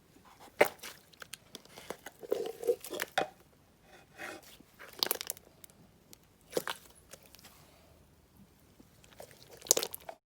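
Slime being handled and squeezed by hand, giving irregular crunchy crackles and squishy pops.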